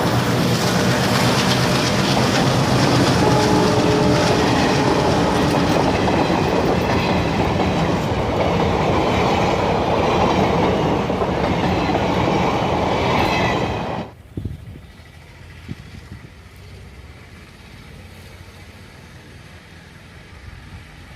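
WDM3D diesel locomotive's ALCO engine chugging loudly as it hauls its train, mixed with the rumble and clatter of wheels on the track. The sound cuts off abruptly about fourteen seconds in, leaving a much quieter low rumble.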